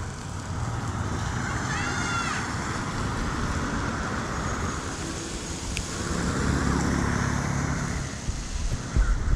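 Steady outdoor rushing noise with a road vehicle passing, swelling about six to eight seconds in. A brief rising-and-falling chirp comes about two seconds in, and a thump sounds near the end.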